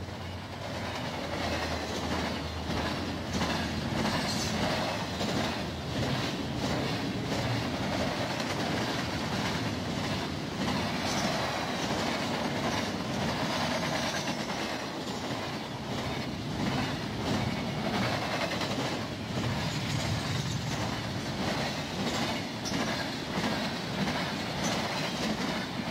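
Double-stack container train's well cars rolling steadily past: a continuous rumble of steel wheels on rail, with the clickety-clack of wheels crossing rail joints.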